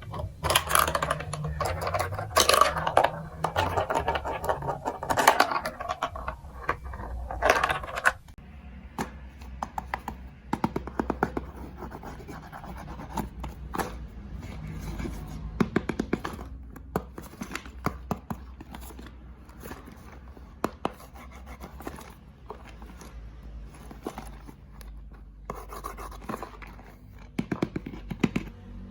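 Plastic building-block pieces being handled: scraping and rattling for about the first eight seconds, then many scattered small clicks and taps.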